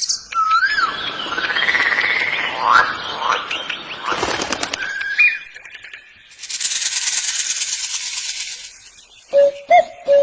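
A run of different bird calls and whistles, changing every few seconds: sliding whistles first, then a dense high buzzing stretch, and short low calls near the end.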